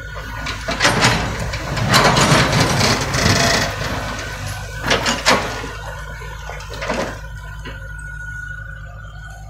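Komatsu mini excavator's engine running under a steady high whine while its steel bucket scrapes into and scoops a pile of broken asphalt chunks, the pieces clattering and grinding. The scraping is loudest from about one to three and a half seconds in, followed by a few sharp knocks of asphalt slabs.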